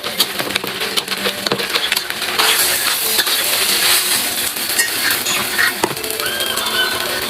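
Food stir-frying in a pan: a sizzling hiss with many sharp clicks and scrapes of a spatula against the pan, the sizzle growing denser about two and a half seconds in.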